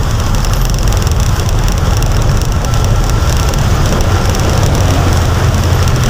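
Heavy rain pouring on a moving vehicle, heard from inside the cabin: a steady low rumble of engine and tyres on the wet road under an even hiss of downpour.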